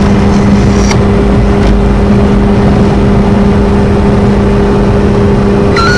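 Steady engine and road noise inside the cabin of a moving car, a continuous drone with a constant low hum.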